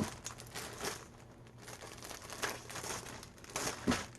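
Rustling and crinkling of a folded t-shirt and its packaging being handled and unfolded, faint, with a few sharper crackles.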